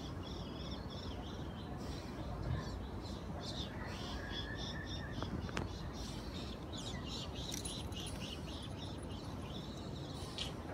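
Small birds chirping repeatedly in short high calls, with one brief held whistle about four seconds in, over a steady low background hum.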